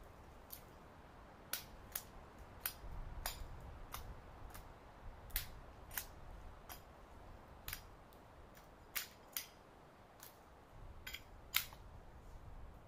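Dry dead twigs and branches snapping and cracking in sharp, irregular cracks as a long dead branch is handled and pulled through dry brush.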